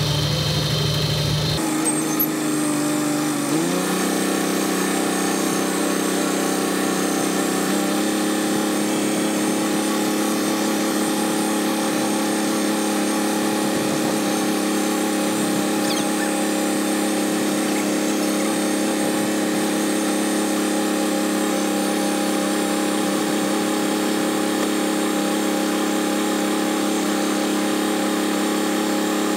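Farm tractor's engine running at a steady speed, heard from inside the cab while it pulls a hay rake. It opens with a second or so of a lower, different rumble. The engine note then climbs a little about three to four seconds in and holds steady.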